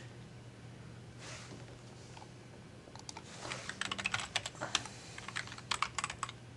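Computer keyboard typing: a quiet pause, then a quick run of keystrokes starting about three seconds in, over a faint steady hum.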